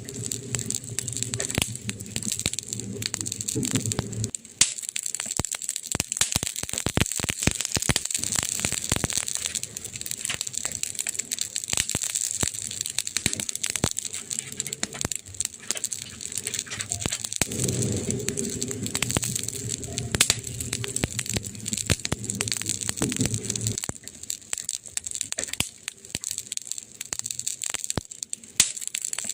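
Wood fire in a fireplace crackling, with dense irregular pops and snaps over a steady hiss. A low rumble runs under it at the start and again for several seconds in the second half.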